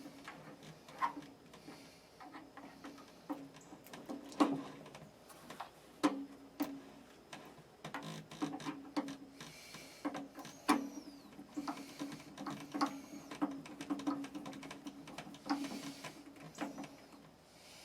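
Irregular clicks, taps and scrapes of hand tools and metal parts being worked, as the lower thermostat of an electric water heater is changed.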